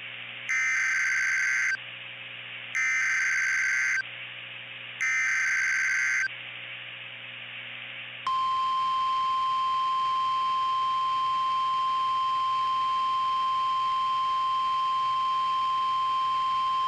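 Emergency Alert System activation. It opens with three bursts of SAME header data tones, a harsh electronic screech about a second long each, with short pauses between. About eight seconds in, a long, steady, single-pitched alert tone begins, announcing a tornado warning.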